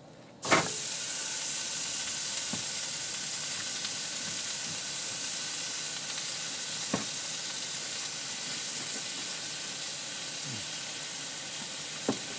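Food sizzling in a frying pan on a camp stove: a steady hiss, with a few light knocks about half a second in, near seven seconds and near the end.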